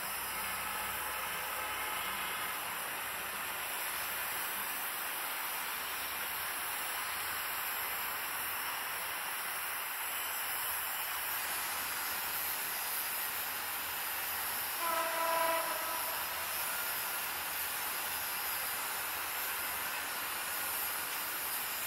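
Diesel locomotive horn, from the approaching EMD GT42ACL, sounding one short blast about a second long, two-thirds of the way in, over a steady hiss of the distant train and its surroundings.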